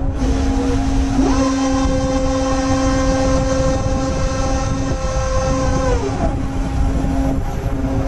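A ferry's mooring winch motor whining as it hauls in a mooring line. It spins up about a second in, holds a steady pitch, and winds down at about six seconds, over a steady low hum and rumble from the ship's machinery.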